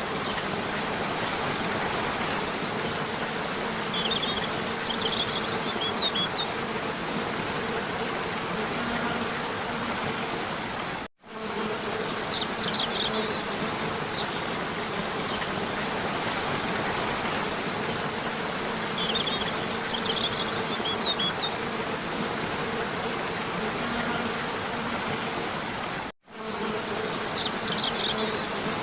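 A steady buzzing drone, insect-like, with a few short high chirps. It is a looped ambience recording that repeats about every fifteen seconds and cuts out briefly at each repeat.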